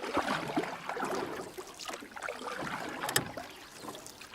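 Water splashing from people swimming: a continuous rushing wash with scattered irregular splashes.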